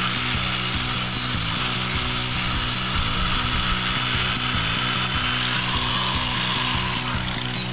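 A power tool working metal, a steady harsh noise with a high whine that falls in pitch near the end, over background music.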